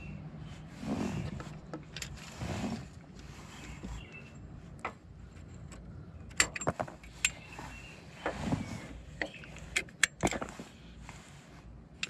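Hands working a zip tie around an AC hose under a vehicle frame, rustling, then side cutters snipping off the tie's tail among several sharp clicks, most of them bunched a little past the middle.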